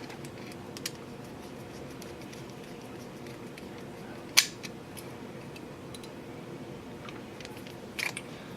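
A few sharp small clicks and taps of a screwdriver and plastic model-kit parts being handled while a screw is driven into the car's chassis: one about a second in, the loudest a little after four seconds, and a quick double click near the end, over a steady faint hum.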